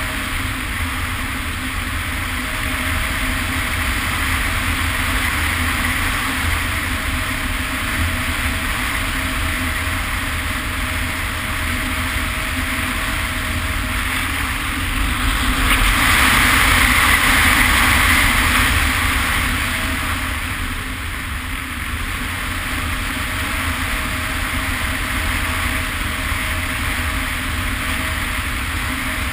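Onboard audio from a Hawk Sky RC plane in flight: wind rushing over the camera with the electric motor and propeller running steadily. The rush swells for a few seconds a little past the middle.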